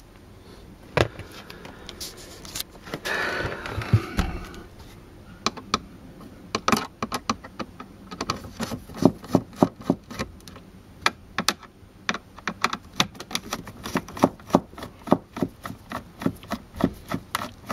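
Screwdriver turning out small dashboard screws, giving a run of sharp clicks about three a second, with a brief rustle about three seconds in.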